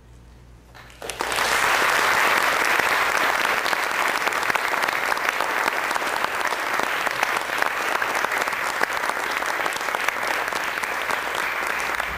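Audience applauding at the close of a live stage dance performance, breaking out suddenly about a second in and then holding steady as a dense clatter of many hands clapping.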